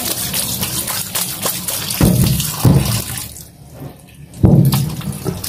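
Kitchen tap running and splashing onto pork pieces being rinsed in a plastic colander in a steel sink, with a couple of low thuds about two seconds in. The water sound drops away briefly, then comes back suddenly and loudly about four and a half seconds in.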